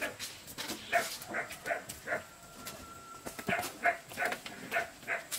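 An animal calling in quick runs of short, clipped calls, about three a second, with a pause of over a second in the middle.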